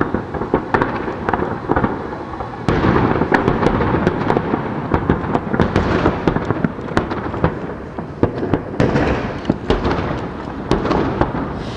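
Aerial fireworks shells bursting in rapid succession: many sharp bangs over a continuous rumble, thickening into a denser, louder barrage about three seconds in.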